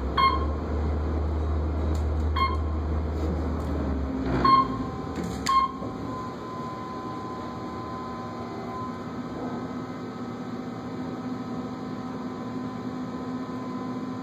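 Otis elevator car travelling up between floors, with a steady hum throughout and a low rumble for the first four seconds. Four short high electronic beeps sound within the first six seconds, and a thin steady tone comes in after the fourth beep.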